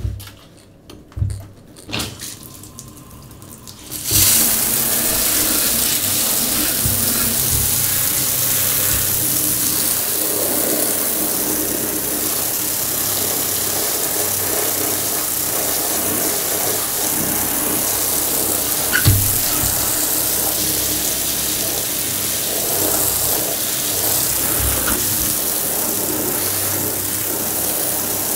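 A few short knocks, then about four seconds in a handheld shower comes on suddenly and sprays a steady stream of water onto shoes and jeans in a bathtub, with an occasional brief thump.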